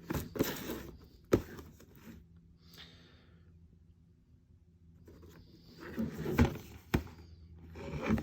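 Hands handling a cardboard model kit box: rustling and scraping with a few sharp knocks, the loudest about a second and a half in, a quieter lull in the middle, then more handling and two more knocks.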